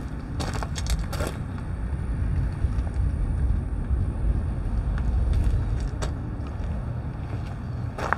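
Footsteps crunching on gravel ballast, a few steps near the start and one about six seconds in, over a steady low rumble.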